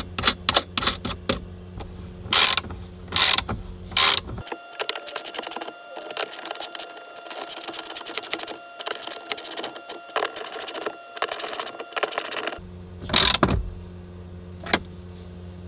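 Hand tools working the terminal nuts on a van's power-system bus bars. First a string of sharp metal clicks and scrapes, then, from about four seconds in, several seconds of fast ratcheting clicks as a driver is turned. A low steady hum sounds under the first and last parts and drops out while the ratcheting runs.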